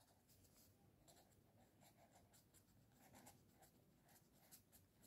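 Faint sound of a ballpoint pen writing on lined notebook paper, a run of short strokes.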